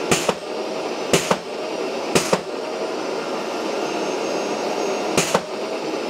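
Festool CTM 36 AC M Class dust extractor running with its blast gate shut and AutoClean engaged. Over the steady suction noise come sharp pops as the AutoClean blasts air back through the filter to clean it: three about a second apart, then another about five seconds in.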